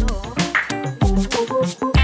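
Background music: a keyboard melody over drum hits, with the deep bass dropping out for most of it and coming back at the end.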